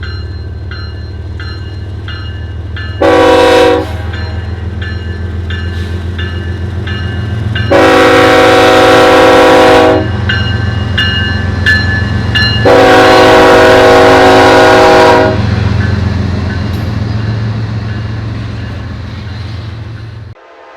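Diesel locomotive air horn sounding for a grade crossing: one short blast about three seconds in, then two long blasts about eight and thirteen seconds in. Under it runs the steady low rumble of the passing train.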